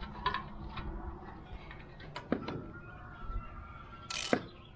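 Hand tools working on a lawn mower engine: scattered light metal clicks and taps, then from about four seconds in a ratchet wrench clicking in short, regular bursts as a bolt is turned.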